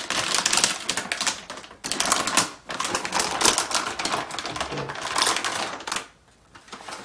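Metallic anti-static bag crinkling and crackling as it is handled and opened, in bursts, with a brief pause about six seconds in.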